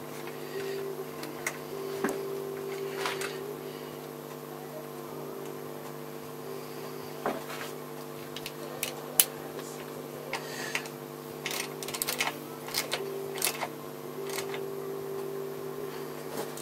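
Scattered light metallic clicks and taps of a hand tool working at the carburettor mountings of a motorcycle engine, over a steady background hum.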